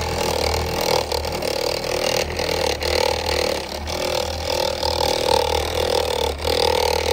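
Hand-held electric car polisher with a buffing pad running against the paint of a car's wing during compound polishing: a steady motor whine that wavers as the pad is pressed and moved.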